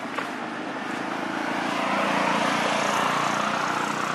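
An engine running steadily, growing louder over the first two seconds, then cutting off abruptly at the end.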